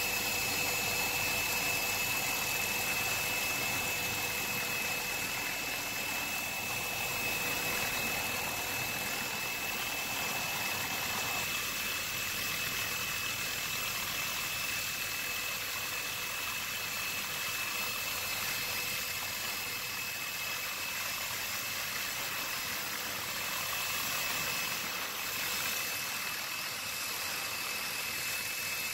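Steady aircraft cabin noise, most likely a helicopter's engine and rotor: a constant high whine over an even rushing noise that does not change.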